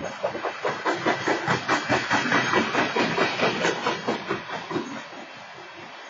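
Freight train cars rolling past, their wheels clattering over the rails in a rapid, even run of several clacks a second with a hiss behind it, easing off about five seconds in.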